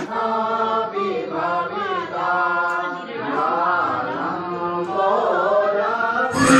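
Devotional aarti chanting: sung vocal lines held on long notes and gliding between pitches. Just before the end it cuts abruptly to louder music.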